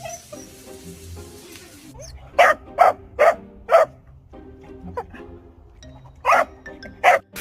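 Dog barking in short, sharp barks: four in quick succession about two seconds in, then a fainter one and two more spaced out toward the end, over quiet background music.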